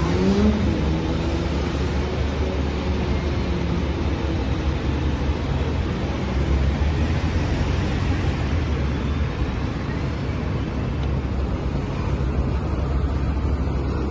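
Steady road traffic on a busy city street, with one vehicle's engine note rising in pitch right at the start.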